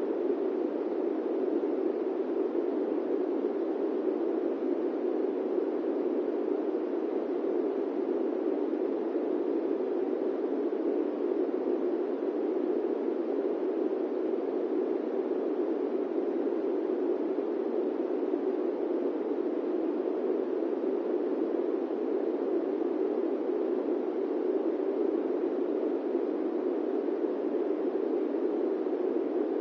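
Steady airplane-cabin white noise: an even, unbroken rush pitched in the low middle range, with no deep rumble beneath it and no changes.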